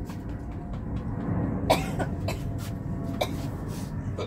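A woman coughing in a few sharp fits, about four coughs in the second half, trying to clear a bread seed stuck in her throat after nearly choking.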